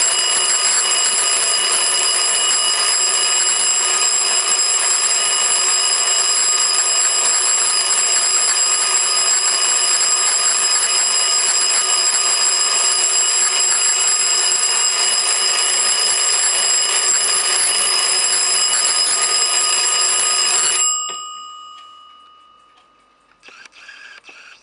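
Battery-operated double-bell alarm clock ringing loudly and steadily, its hammer striking the two bells rapidly. After about twenty seconds it stops suddenly and the bells ring on, dying away over a couple of seconds. A brief faint rustle comes near the end.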